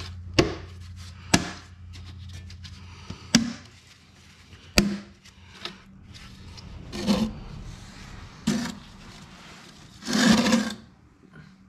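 Plastic lid being pressed down onto a pail of drained oil, with several sharp snapping clicks in the first few seconds. Rustling and scraping follow, loudest near the end, as a person shifts and slides on a concrete floor.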